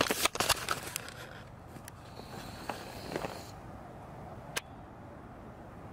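Handling noise as the camera is picked up and aimed: a quick run of knocks and rustles in the first second, a rustle a couple of seconds in, and a single sharp click near the end, over quiet outdoor background.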